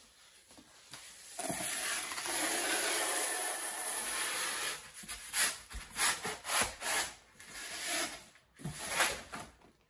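A boxed baby bouncer being dragged and handled: one long scrape lasting about three seconds, then a run of short scrapes and knocks.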